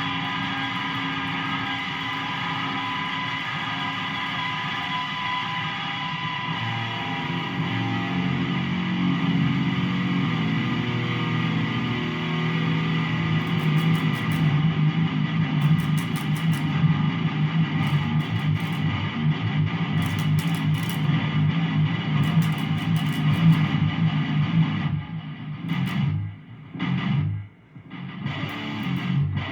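Electric guitar tuned to drop F# playing a low riff: a ringing chord held for the first several seconds, then fast picked notes low on the neck, with two brief breaks near the end.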